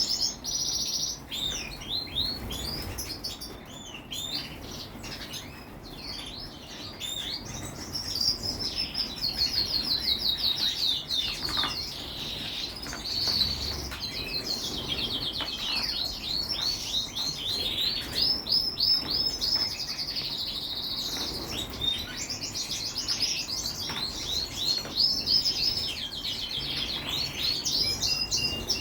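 Many small birds chirping and twittering together, with rapid trills overlapping throughout.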